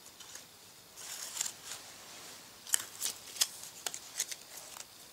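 Hands threading a plastic tie through a differential carrier to hold the clutch pack: rustling, then a string of sharp, irregular clicks in the second half.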